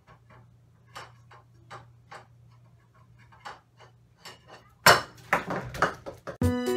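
A bowl clinking and tapping on a table top as a puppy licks it clean, then about five seconds in a sudden loud crash as the bowl is knocked off the table and clatters on the floor. Breakbeat music starts just after.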